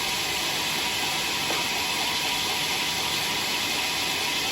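Sawmill saw running steadily through teak wood, a continuous even noise with no breaks.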